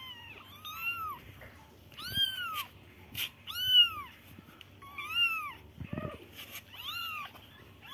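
A litter of young kittens mewing over and over: high, thin mews that each rise and fall, coming about once a second and sometimes overlapping.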